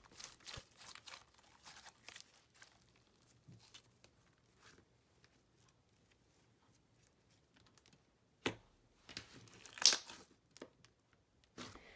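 Thick slime softened with vegetable glycerin being kneaded and pressed by hand: faint sticky crackles and small clicks, with two louder snaps or pops near the end.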